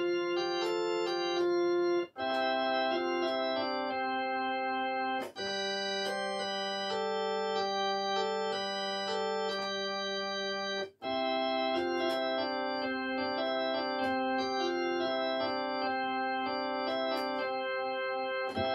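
Electronic keyboard played solo: held chords over a low bass note, the notes sustaining without fading while a melody moves above them. The chord changes with short breaks about 2, 5 and 11 seconds in, and the playing cuts off at the close of the song.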